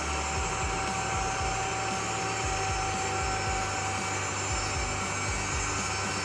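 Case IH AF8120 combine running as it drives on its tracks: a steady whirring whine from the diesel engine and fans, with low irregular thumps underneath.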